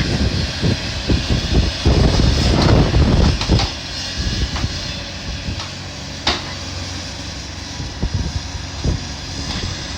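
Engine of heavy demolition machinery running steadily, with wind buffeting the phone's microphone in heavy gusts during the second and third seconds. A sharp knock sounds about six seconds in.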